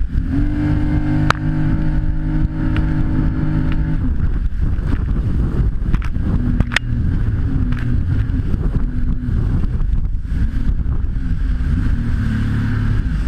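Jet ski engine running under way with a loud drone, holding one pitch for the first few seconds and then rising and falling, over a heavy rumble. Two sharp knocks are heard, one early and one about halfway through.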